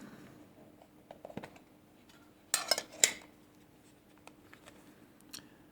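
Handling noise of a Zippo lighter's collector's tin and packaging: a few small clicks, then two short clatters about half a second apart.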